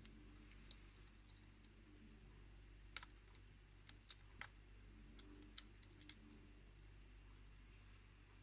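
Faint, irregular small metallic clicks of a lock pick working the pins of a pin-tumbler challenge lock held in a false set, a dozen or so scattered ticks, the sharpest about three seconds in and a cluster a second later. A low steady hum lies underneath.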